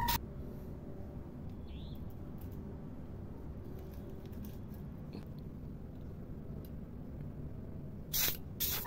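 Faint low room noise, then near the end two short hissing bursts from an aerosol spray can of NC candy-tone paint.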